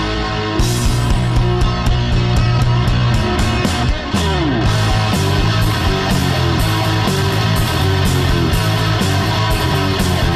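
Background rock music led by guitar, with sustained bass notes and a steady beat; a note slides down in pitch about four seconds in.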